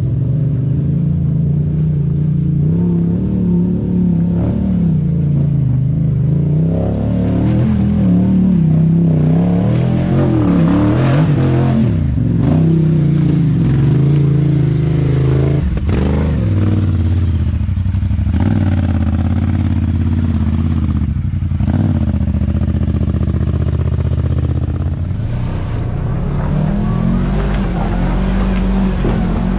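Side-by-side UTV engine revving up and down, its pitch rising and falling repeatedly, with a few sharp knocks partway through.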